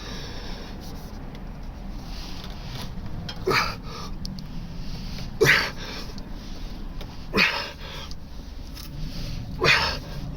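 A man's short, forceful breaths of effort, four times about two seconds apart, as he strains to twist a stuck oil filter off by hand.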